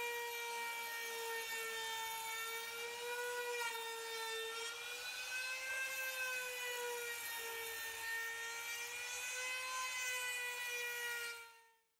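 Trim router with a round-over bit running and cutting along the edge of a wooden frame: a steady high whine whose pitch wavers slightly as the bit takes the cut. It fades out near the end.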